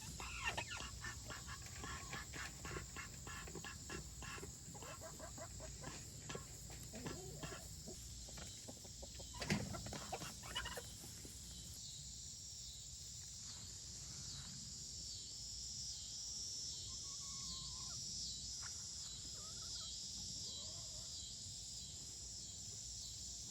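Chickens clucking quietly, with many short clucks in the first half and a few scattered calls later, over a steady high chirring of insects.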